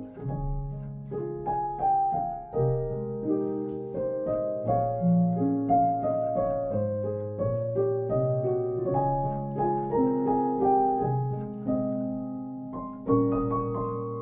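Background piano music: a gentle, slow piece of struck notes and chords, each left to ring and fade.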